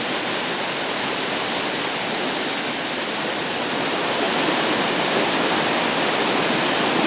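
Waterfall rushing steadily, a dense even roar of falling and splashing water, growing slightly louder about four seconds in.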